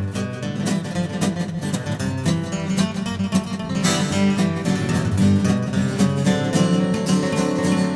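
Acoustic guitar picking and strumming a country boogie tune, with a steady run of quick plucked notes.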